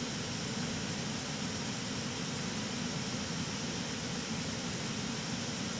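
Steady rush of airflow and engine noise inside an airliner's cockpit in cruise flight.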